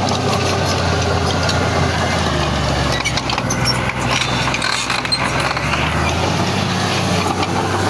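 Heavy diesel earthmoving machinery running steadily, with scattered clicks and knocks. The engine's note eases a little in the middle.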